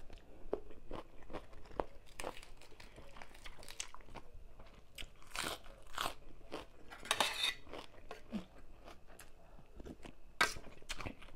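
A person chewing and crunching mouthfuls of tam sua, a spicy salad of rice noodles, shrimp and raw vegetables, heard in close-up. Irregular crunches and wet chewing go on throughout, with a few louder crunchy bites midway and again near the end.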